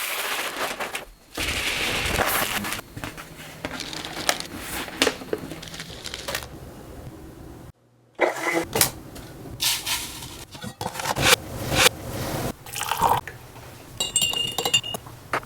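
Whole coffee beans poured from a bag into a burr grinder's hopper: a rushing, rattling stream of beans in several pours, breaking off briefly about halfway.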